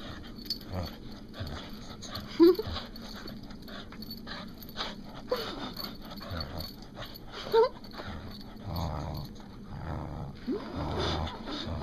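Dog playing tug with a rope toy, growling and giving short rising whines. The two loudest whines come about two and a half and seven and a half seconds in, and a longer low growl comes near the end.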